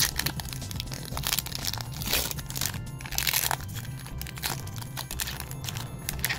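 Foil Pokémon booster-pack wrapper crinkling and tearing in a run of short bursts as the pack is ripped open, over background music.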